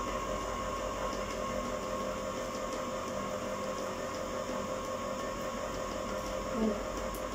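Steady electric hum of a home ice cream maker running while it churns and freezes the mix, an even drone with fixed tones and no change in speed.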